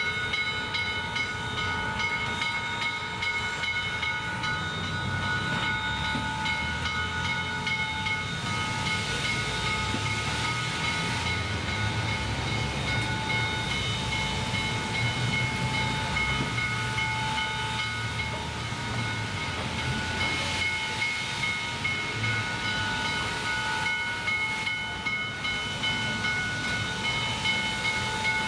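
Train running, with a steady low rumble and several steady high tones ringing above it throughout.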